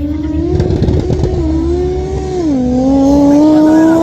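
Race car engine under full throttle, its pitch climbing, dropping sharply at an upshift about two and a half seconds in, then climbing again as it gets louder.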